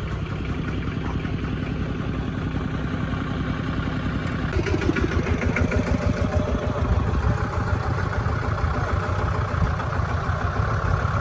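An engine running steadily with an even low pulsing, getting somewhat louder about four and a half seconds in.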